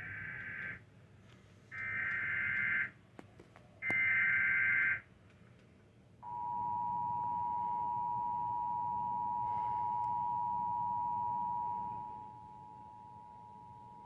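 Emergency Alert System alert coming over the TV: three short bursts of screeching digital data tones about a second apart, then the steady two-tone attention signal held for about eight seconds. The alert announces a Severe Thunderstorm Warning.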